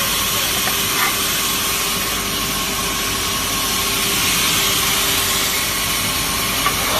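Log sawmill machine running steadily: a continuous hiss with a faint steady motor hum, and two small knocks, one about a second in and one near the end.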